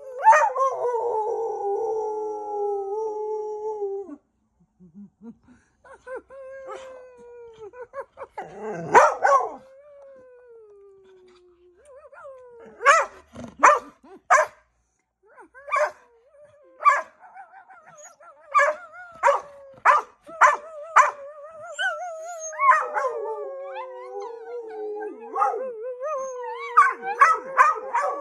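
A dog howling: long, wavering drawn-out howls, with a run of short, sharp barks in the middle.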